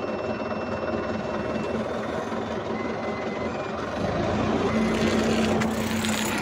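Small farm tractor's engine running, heard from the driver's seat, growing louder about four seconds in as the tractor moves off.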